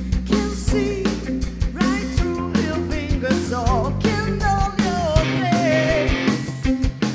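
Live rock band playing: a woman sings lead over electric guitar, bass guitar and a drum kit. The voice comes in about two seconds in.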